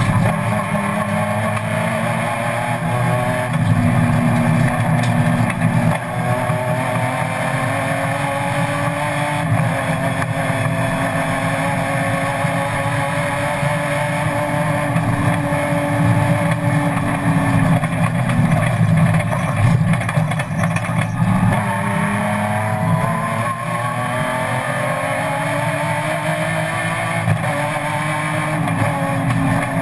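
BMW M3 race car engine heard from inside the cabin under hard acceleration, its pitch climbing as the revs rise. About two-thirds through the revs drop away as the driver lifts off, then climb again near the end.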